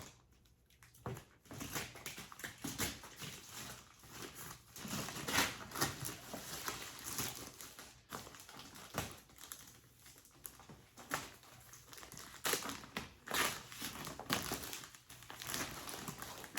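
Plastic packaging crinkling and rustling as it is handled, in irregular bursts with sharper crackles now and then.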